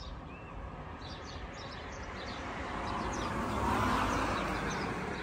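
A vehicle passing on the road, a broad rushing noise that swells to its loudest about four seconds in and then fades. Small birds chirp over it.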